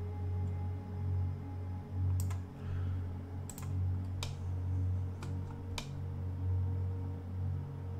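Computer keyboard keys pressed as a few separate sharp clicks, about six of them between two and six seconds in, over a steady low hum.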